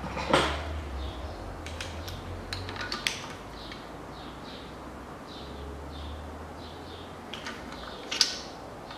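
Scattered metallic clicks and taps from a socket wrench on an extension tightening the bolts of an engine's aluminium upper oil pan, over a steady low hum. The loudest clicks come about a third of a second in and just after eight seconds.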